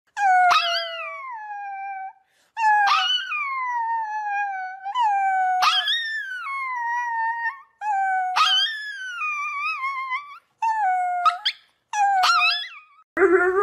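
Chihuahua howling: a run of about six high-pitched howls, each starting sharply and sliding down in pitch, with short breaks between them.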